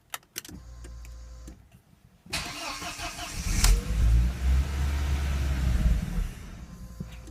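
2004 Audi A4 1.8-litre four-cylinder engine starting: a click and about a second of low hum as the key turns, then about two seconds in the engine is cranked and runs for roughly four seconds before falling away and dying near the end. This is the car stalling, part of its misfiring and stalling fault.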